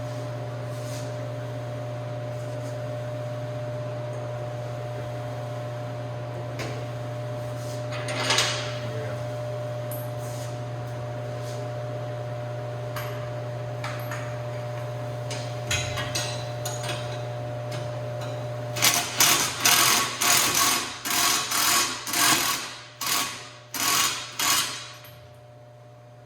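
A steady mechanical hum with a few scattered clicks. Then, for about six seconds near the end, a quick run of about ten loud, sharp metallic hits, roughly two a second, as the subframe connector hardware is worked on.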